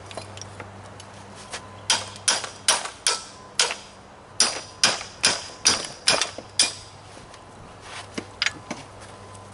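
About a dozen sharp metal-on-metal hammer blows, roughly two a second, then two lighter taps near the end. A hammer is striking a wrench to break loose a stuck fastener on an air compressor's pump.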